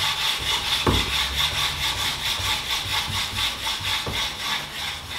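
A flattening stone rubbed back and forth over a Japanese sharpening water stone in quick strokes: a steady, rhythmic stone-on-stone grinding scrape, with a short knock about a second in and another about four seconds in. The rubbing grinds out the dip that knife sharpening has worn into the water stone, making its face flat again.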